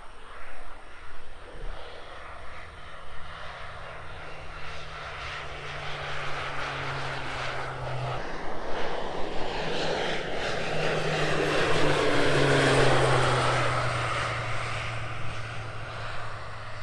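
Combine harvester cutting rice: a steady engine hum under the whir of the header and threshing. The noise builds to its loudest about twelve seconds in and then eases, as the machine passes.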